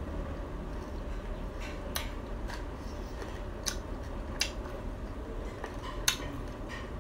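Close-miked chewing of crispy fried Khmer cakes: a handful of sharp crunches and mouth clicks, the loudest about six seconds in, over a steady low hum.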